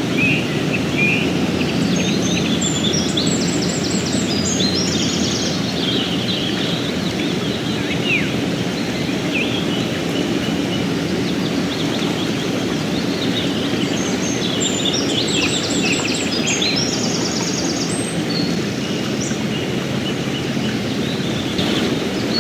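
Fast mountain river rushing steadily, with a songbird singing quick trilled phrases over it in two bouts, a couple of seconds in and again past the middle.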